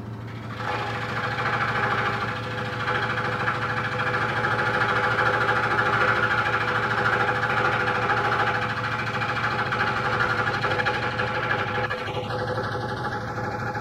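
Electric scroll saw running, its fine reciprocating blade cutting through a stacked packet of veneers: a steady motor hum under the rasp of the cut, which thins out near the end.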